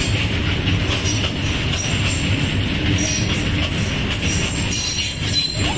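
Empty BCNHL open freight wagons rolling past, a steady, continuous rumble of wheels on the rails.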